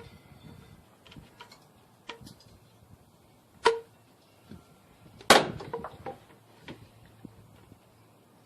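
Scattered clicks and knocks from hands and tools working a spring hose clip and radiator hose into place. Two sharper knocks come about three and a half and five seconds in, the second the loudest and ringing briefly.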